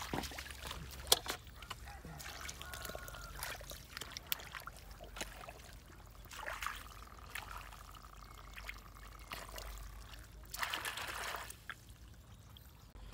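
Freshwater eels writhing in shallow muddy water in a plastic basin: wet trickling and slithering with scattered sharp clicks.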